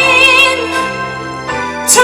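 A woman singing a live soul ballad, holding a note with vibrato over sustained accompaniment chords. The note eases off about a second in and a new phrase starts near the end.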